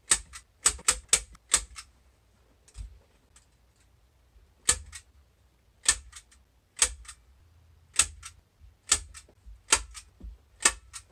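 Staple gun firing staples through fabric into a wooden frame: a series of sharp snaps, several in quick succession at first, then about one a second.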